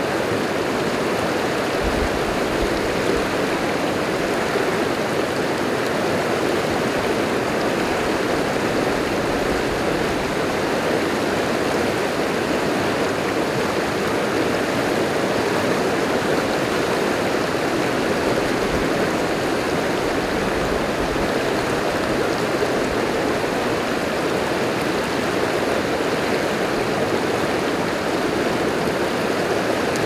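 River rapids rushing over and around granite boulders: a steady, even rush of white water.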